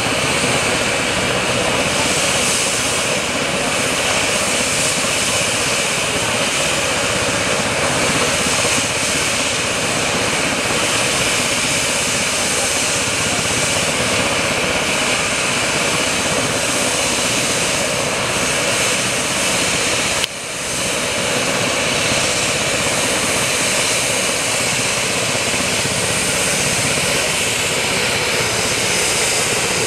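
AgustaWestland AW139 helicopter's twin turboshaft engines and main rotor running on the ground, a loud, steady turbine whine and rotor rush, with the aircraft kept turning for a hot load. The level drops sharply for a moment about twenty seconds in and then recovers.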